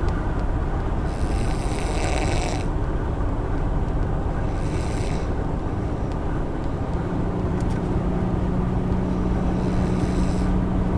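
Heavy snoring, a rasping breath every few seconds, from someone asleep in the back seat of a moving car, over steady road and engine noise. A steady low hum joins the road noise about halfway through.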